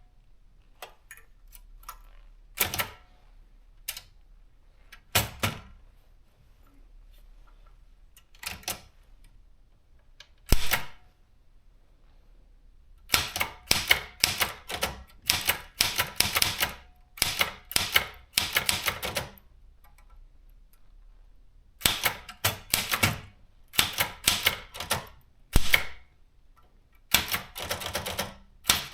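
Privileg JP 1 typewriter being typed on: a few separate key strikes at first, then fast runs of keystrokes in bursts of several seconds with short pauses between them.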